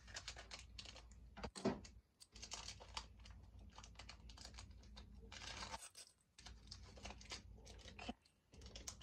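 Foil trading-card pack wrapper being cut open with scissors and torn and peeled back by hand: dense crinkling and crackling in spurts, with a few short pauses.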